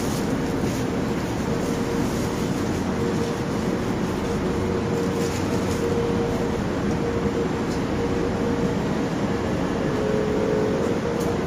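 Steady hum and noise inside a 'Moskva 2020' (81-775/776/777) metro car standing still at a station platform, with a faint steady tone and a few light ticks; the train is not moving, so there is no run-up or braking sound.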